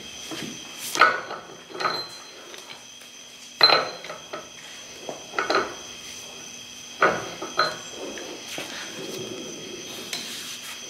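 Metal clinks and clanks from a Dana 60 front hub and brake rotor being handled and spun by hand on its wheel bearings, seating the bearings after the inner spindle nut is torqued. There are half a dozen sharp clanks, and a low rumble near the end.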